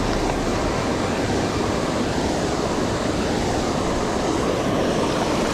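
Steady rush of water from a waterfall and fast river: an even, unbroken noise.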